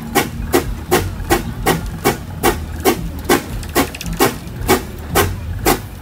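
Fowler steam ploughing engine working under load while winching, its exhaust beating in sharp, regular chuffs about two to three a second, slowing slightly toward the end, over a low rumble.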